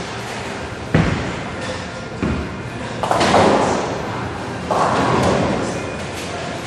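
Tenpin bowling: a couple of heavy thuds of bowling balls, then bowling pins crashing about three seconds in and another crash of pins about five seconds in, echoing in a large bowling hall.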